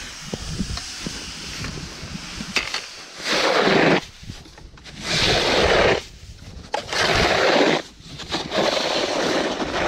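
Snow shovel pushed across pond ice, scraping and shoving snow aside to clear a patch. It comes as three loud scrapes, each about a second long and roughly two seconds apart, with softer crunching between them.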